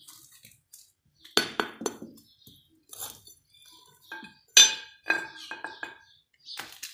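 Metal trowel digging soil out of a terracotta pot, scraping and clinking against the clay in a run of irregular strikes, the loudest about two-thirds of the way through.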